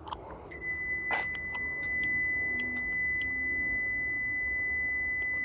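A steady, high electronic tone from the 2013 Lexus ES350's warning buzzer starts about half a second in and holds without a break, with a few light clicks over it.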